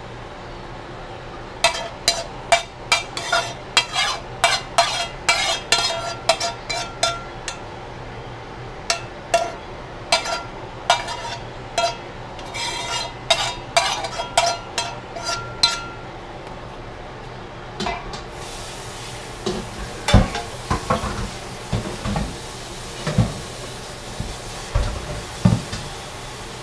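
A metal spoon scraping and clanking against a frying pan in a quick run of sharp strokes as cooked greens are scraped out into a plastic container. In the second half the strokes give way to duller, lower knocks and thuds.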